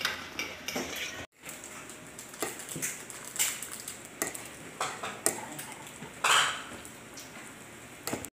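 Metal spoons and forks clinking and scraping against plastic bowls while instant noodles are tossed with their seasoning, in irregular taps and scrapes.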